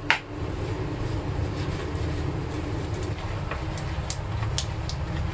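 Steady low rumble, with a sharp knock right at the start and a few faint light clicks between about three and five seconds in.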